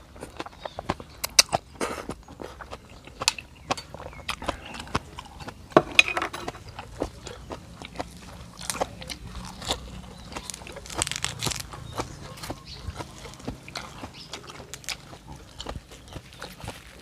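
A person eating beef noodle soup: irregular chewing, slurping and mouth smacking, with sharp clicks scattered throughout and a few longer noisy stretches about six and eleven seconds in.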